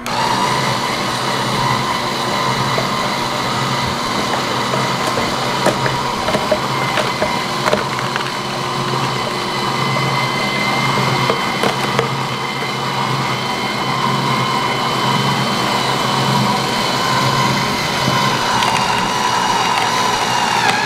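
Two slow-masticating cold press juicers, an AMZChef horizontal and a Dash vertical, running together with a steady motor hum and whine while juicing carrots. A few sharp knocks and cracks come through as carrot pieces are fed in and crushed by the augers.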